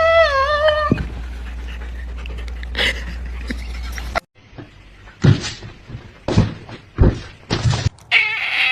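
A dog giving a short wavering whine, then panting in short, irregular breaths.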